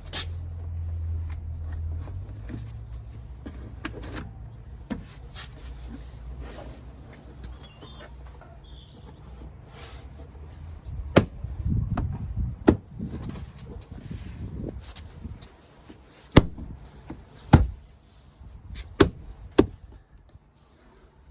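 Plastic door card being handled and pressed onto a car's rear door: low rubbing and handling noise, then a string of about six sharp knocks and clicks as the trim clips are pushed home.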